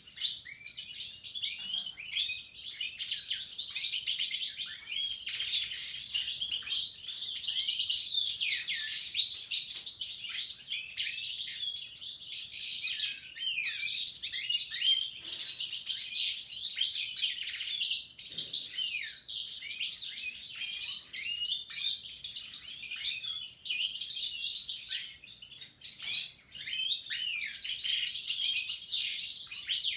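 Caged European goldfinches (Siberian and parva types) and a Raza Española canary singing together, a dense, unbroken mix of twittering and warbling phrases.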